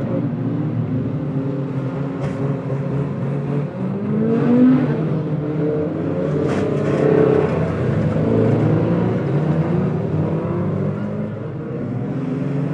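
Several banger racing cars' engines running hard and revving, their pitches rising and falling as they circle and pass, with a couple of sharp knocks of contact, about two and six and a half seconds in.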